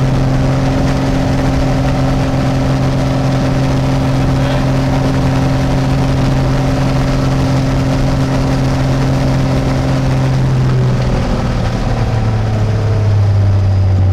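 Piper Cherokee Six's six-cylinder Lycoming engine and propeller running steadily at raised power during a ground run-up, one of its first runs after 22 years out of annual. About eleven seconds in, its note drops in pitch and then grows a little louder.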